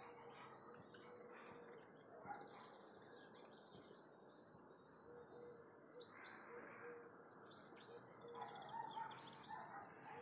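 Faint birdsong: small birds chirping and trilling in short phrases, over a low even background and a faint steady hum.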